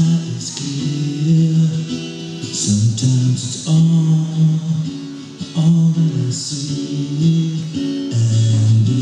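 Acoustic guitar played and sung to: chords struck on the strings under a sung melody with long held notes.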